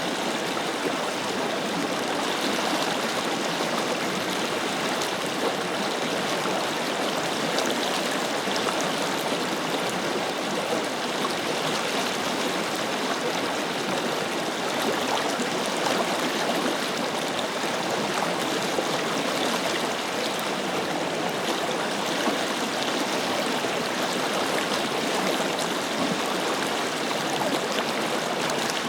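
Forest river flowing steadily over stones, a continuous rush of water with small splashes and gurgles.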